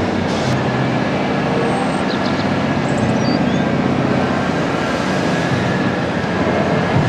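Large mining haul truck's diesel engine running under load while the hoist tips the bed and the rock load slides out: a loud, steady drone with a low engine hum.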